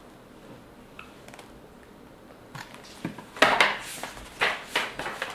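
Pages of a hardcover picture book being flipped and the book handled, a few quick paper swishes and rustles starting about three seconds in after a quiet start.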